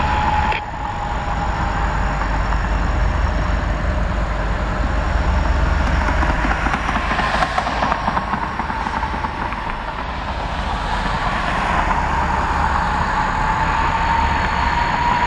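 Diesel locomotives idling in a rail yard: a steady low rumble with a thin whine that slowly sinks in pitch and then rises again.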